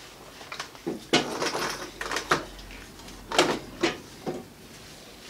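Timber sub-frame pieces and a hinged pop-up wheel block knocking and clunking as they are shifted and set in place, in about half a dozen irregular knocks.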